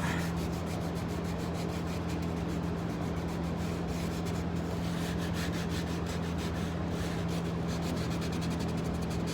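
Sandpaper rubbed by hand over a dried joint-compound patch on drywall, a steady scratchy rasp as the edges of the patch are feathered out. A steady low hum runs underneath.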